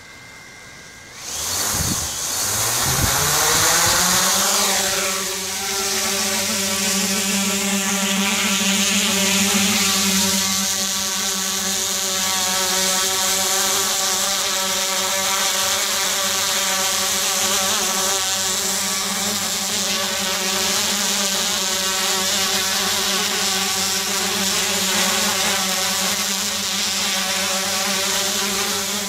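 DJI Inspire quadcopter's four motors and propellers throttling up about a second in, their pitch rising over the next few seconds as it lifts off, then a steady hum of several even tones while it flies overhead.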